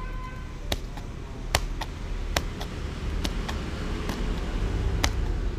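Kitchen knife slicing red chilies on a plastic cutting board: a sharp tap of the blade against the board about once a second, over a steady low hum.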